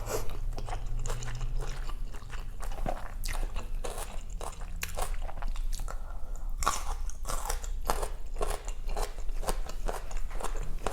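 Close-miked eating: mouth chewing and biting food with many small, irregular crunches.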